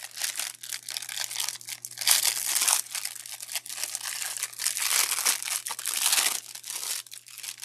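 Clear plastic film crinkling as it is peeled off a silicone resin mold, in irregular rustles that die down about six seconds in.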